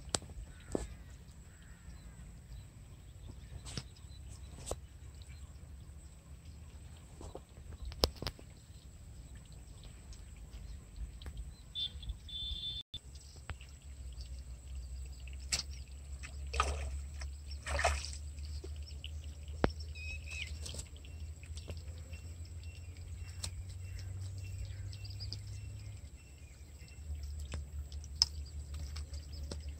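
A hooked fish splashing twice in weedy water as it is pulled out, over a steady low rumble. A bird chirps briefly a couple of times.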